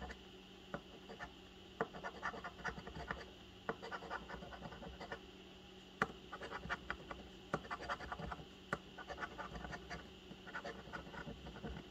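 Coin scraping the coating off a scratch-off lottery ticket in runs of quick, short strokes, with brief pauses between runs.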